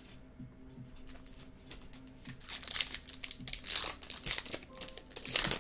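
Foil wrapper of a baseball card pack crinkling and tearing as it is pulled open by hand. The crackling starts about two seconds in and is loudest near the end.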